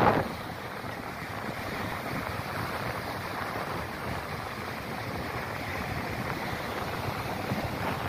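Sea surf breaking and washing up the shore, a steady rushing noise, with wind buffeting the microphone. A brief louder burst comes at the very start.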